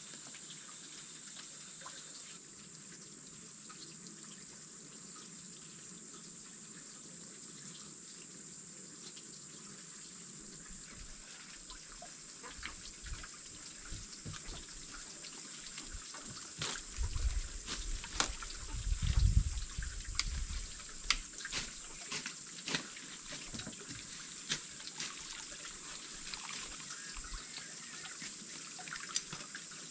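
Water trickling steadily, with a constant high hiss behind it. From about halfway, scattered clicks and a cluster of low thumps, the loudest sounds here, cut across the trickle.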